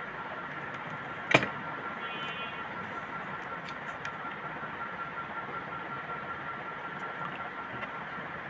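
A single sharp click about a second in, from handling wires and connectors on a tabletop, over a steady hiss and a faint steady high whine, with a few small ticks later on.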